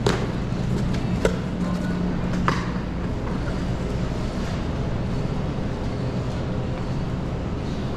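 A steady low mechanical hum, with three sharp knocks in the first few seconds, each about a second and a quarter apart.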